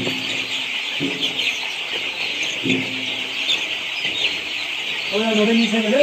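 Hundreds of ten-day-old broiler chicks peeping together, a dense steady chorus of short high chirps. A few short, lower voice-like sounds come through, the longest and loudest near the end.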